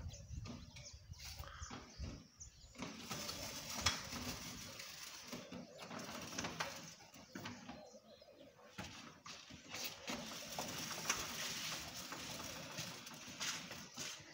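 Aluminium bi-fold door panels being slid along their track and folded shut by hand: a steady rolling rumble with a few sharp clicks as the panels and hinges meet.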